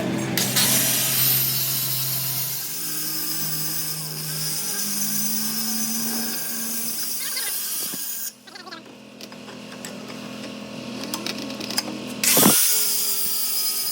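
Power tool working on the steel axle housing. It runs for about eight seconds, pauses for several seconds, then starts again near the end.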